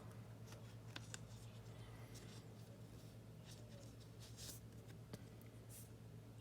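Faint handling of trading cards: a few soft slides and light clicks over a low steady hum.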